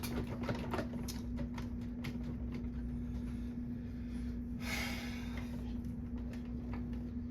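Hoover WindTunnel upright vacuum running steadily, its motor giving a constant hum with a low rumble beneath. Light clicks come and go, and a short hiss comes about four and a half seconds in.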